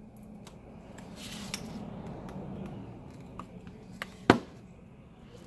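Scraping and small clicks of a prying tool being slid under the cracked digitizer glass of an iPad Air, with one sharp click about four seconds in as the glass catches on a crack.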